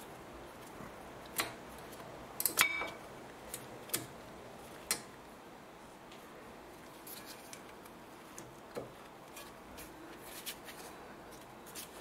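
New front brake pads and the caliper being fitted over the brake disc: scattered light metallic clicks and clinks as the pads slide along the clip rails. There are several in the first five seconds, one with a short ring, then fainter ones.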